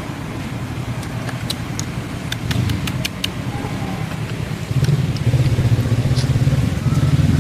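An engine running steadily with a low, rough hum that grows louder about five seconds in, with a quick run of sharp clicks near the middle.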